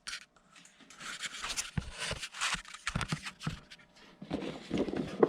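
Irregular rustling and rubbing with light clicks and knocks, from packaging and items being handled on a workbench.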